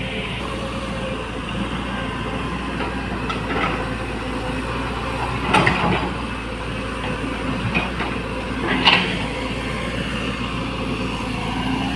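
Hydraulic excavator's diesel engine running steadily, with a few short metallic clanks, the loudest two about five and a half and nine seconds in.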